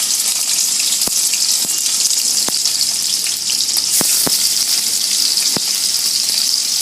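Diced paneer shallow-frying in hot oil in a deep pan: a steady, loud sizzle with sharp spattering pops every second or so.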